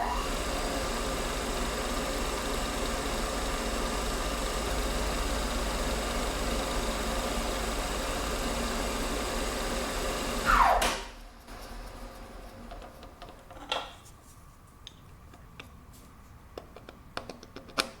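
Schaublin 102 lathe running steadily with an even motor whine while it turns a part down by a few hundredths of a millimetre. Nearly eleven seconds in the motor is switched off and winds down with a falling whine, followed by a few light clicks.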